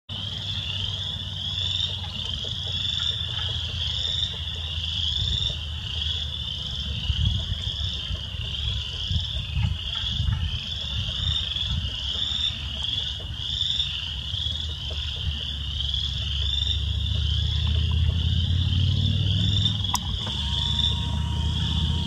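Chorus of spring peepers: many high, rising peeps overlapping into a continuous shrill ring, over a low rumble.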